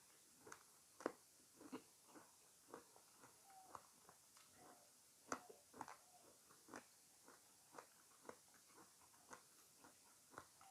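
Close-miked chewing and biting of fresh fruit: irregular wet, crunchy bites and mouth clicks, a few a second, with sharper crunches about a second in and again about halfway through.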